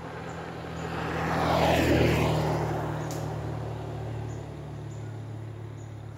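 A vehicle passes on the road, swelling to a peak about two seconds in and falling in pitch as it fades away, over a steady low engine hum.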